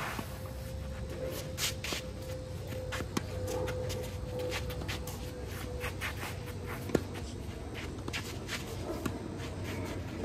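Tennis rally on a green clay court: tennis shoes scuffing and sliding on the gritty clay between shots, with sharp racket-on-ball hits about three seconds in and, loudest, about seven seconds in.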